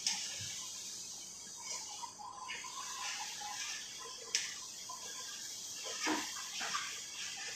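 Bharli vangi (stuffed brinjal masala) sizzling in a stainless steel pan on a gas burner as it is stirred, the metal spoon scraping and clinking against the pan, with one sharp clink about four seconds in.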